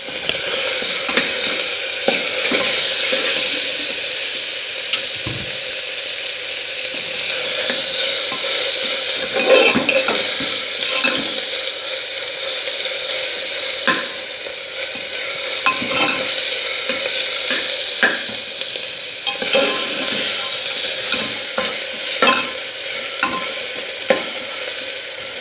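Chopped onion, garlic and ginger sizzling in hot oil in a pan while being stirred, with short scrapes against the pan every second or two; they are being browned a little.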